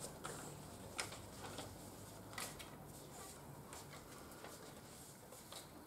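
Quiet room tone with a handful of faint ticks, spaced a second or more apart, amid light handling of paper cue cards.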